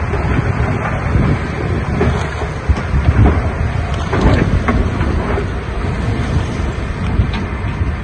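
Diesel engine of an earthmoving machine running steadily, with wind buffeting the microphone and a few knocks around the middle.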